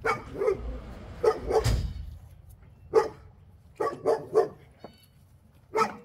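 A dog barking: about nine short barks in uneven groups.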